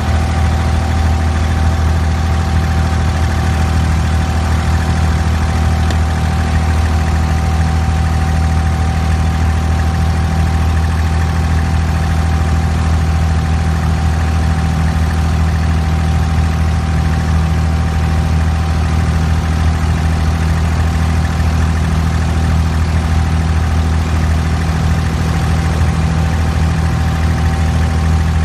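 Inboard diesel engine of a wooden abra water taxi running steadily under way: a loud, even low drone with a thin steady whine above it.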